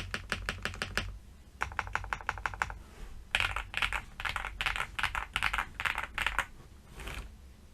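Typing on an Akko SPR 75 spring-mounted mechanical keyboard with Akko V3 Cream Yellow Pro linear switches and ABS Cherry-profile keycaps. Quick runs of keystrokes give way to louder clusters of strokes from about three seconds in.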